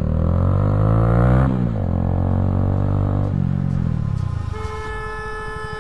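Bajaj Avenger motorcycle with a custom exhaust accelerating: the engine note climbs, drops at a gear change about a second and a half in, climbs again, then eases off. A steady high tone joins near the end.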